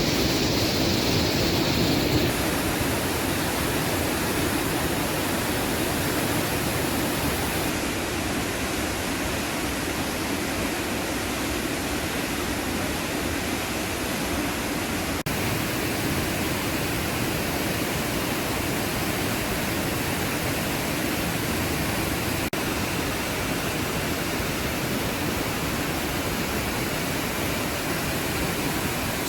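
Waterfall rushing: a steady, dense noise of falling water, broken only by two very brief dips about halfway and two-thirds through.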